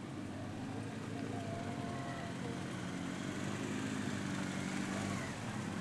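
Cars of a slow motorcade passing at low speed, engines running steadily and growing slightly louder, with voices from the roadside crowd.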